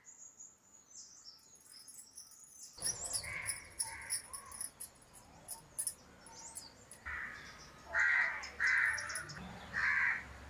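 Crows cawing: two harsh caws about three seconds in, then a louder run of four caws in the second half, over faint chirping of small birds.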